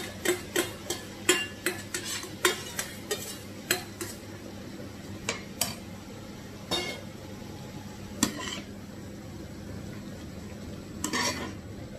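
A cooking utensil knocking and scraping against a pan as mushrooms are stirred in with onions and ginger garlic paste: quick repeated clicks for the first few seconds, then occasional knocks.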